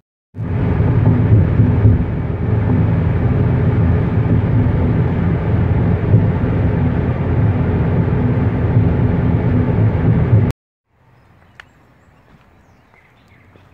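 Steady road noise inside a car cabin at highway speed: a low tyre and engine drone with a faint steady hum. It cuts off abruptly about ten seconds in, leaving faint outdoor ambience with a single small click.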